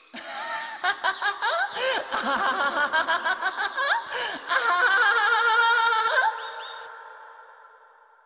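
Cackling laughter from a voiced character, going on for about six seconds with a heavy echo, then fading away over the last two seconds.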